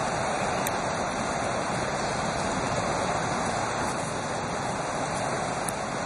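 Fast-flowing river rushing steadily through rapids, a continuous even wash of water noise.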